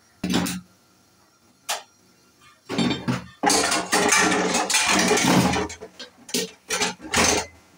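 Steel pot and dishes knocking and clattering in a kitchen sink: a few separate knocks, then a couple of seconds of dense clatter in the middle, and more knocks near the end.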